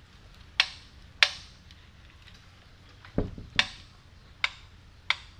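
Sharp metallic clinks of tools against the main bearing caps of a BMW S54 engine block as the caps are worked loose: six separate strikes, the one about three seconds in a duller knock.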